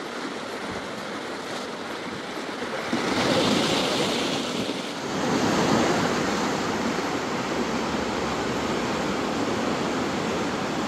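Sea waves breaking and washing in as a steady rush. It swells louder about three seconds in and again a little after five seconds.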